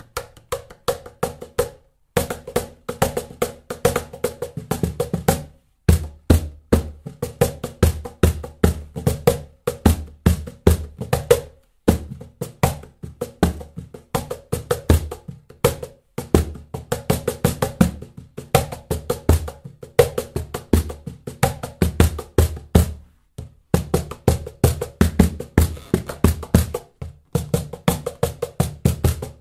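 Birch-ply cajon with its adjustable snare engaged, played by hand in a fast groove: deep bass strokes mixed with sharp slaps, with a few short pauses between phrases.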